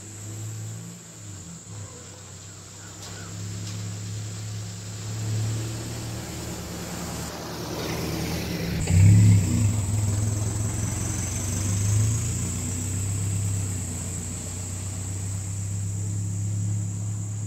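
A pickup truck driving past on a dirt road: its engine hum builds as it approaches and is loudest as it passes close by about nine seconds in, with tyre noise from the gravel surface, then it carries on down the road.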